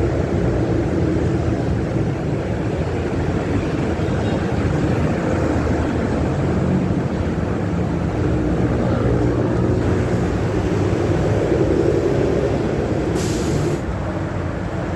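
Steady low machine rumble, with a short hiss about thirteen seconds in.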